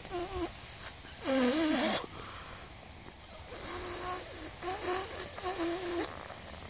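A person mouth-inflating an inflatable paddling pool through its valve: about five breathy blows, each with a short wavering pitched groan. The loudest and breathiest comes about a second and a half in, and three follow close together near the end.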